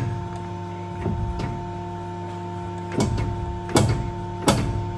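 Uniflex hydraulic crimping machine running with a steady hum while it crimps the aluminium outer can onto an air spring's rubber bellows. Sharp metallic clicks and knocks come near the start and about a second in, then three in a row about three-quarters of a second apart near the end.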